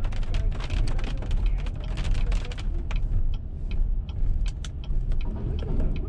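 Car cabin road noise, a steady low rumble of tyres and engine on a wet road, with irregular sharp ticks of drops hitting the windshield and roof, thickest in the first few seconds.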